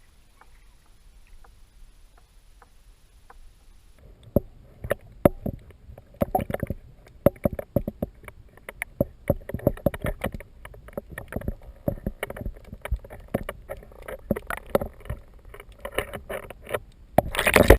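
A kayak on the move: a quiet start, then from about four seconds in a dense run of irregular knocks and splashes, ending in a short, louder rush of noise.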